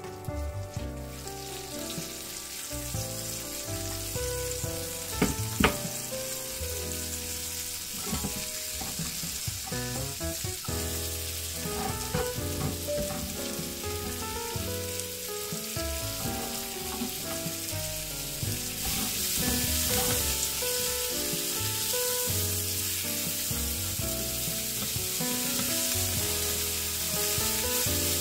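Garlic and sliced onion sizzling as they fry in a nonstick frying pan, stirred now and then with a silicone spatula. The sizzle grows louder about two-thirds of the way in, and a couple of sharp knocks sound about five seconds in.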